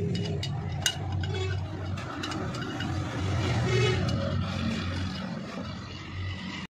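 A few light metallic clicks of parts being handled and seated in a Tokico fuel dispenser's metal meter housing, over a steady low engine-like drone. The sound cuts off abruptly near the end.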